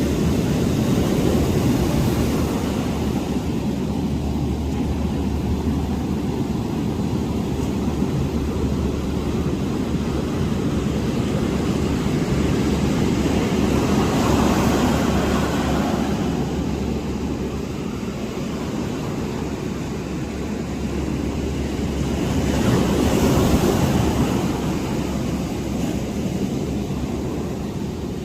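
Steady low wind rumble on the microphone over ocean surf, swelling twice as waves break, once about halfway through and again later.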